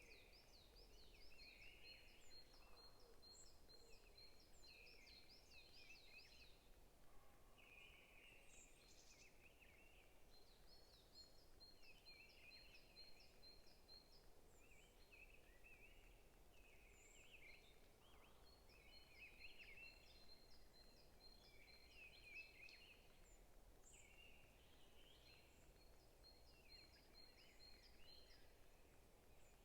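Forest birds singing faintly: several birds chirping, with one repeating a fast run of high notes for a few seconds about every eight seconds.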